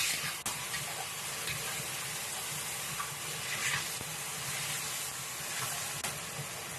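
Diced chicken sizzling steadily in hot oil in a wok as it is stir-fried and the pieces are broken apart, with a few light taps of the spatula.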